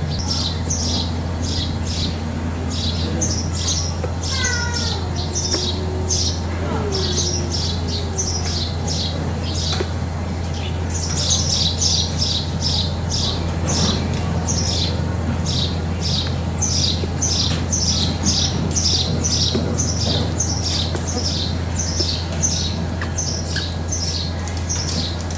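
A small bird chirping over and over, short high chirps about two to three a second, over a steady low hum.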